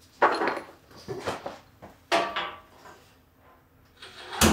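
Several sharp wooden and metal knocks and clunks as LVL riser blocks are set under the corners of a planer's steel stand; the loudest knock comes near the end.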